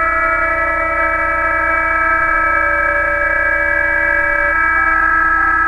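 Receiver audio of several BPSK-31 data signals on the 20-metre band: a chord of steady tones at many different pitches sounding together over a low hum, one of the higher tones dropping out about five seconds in.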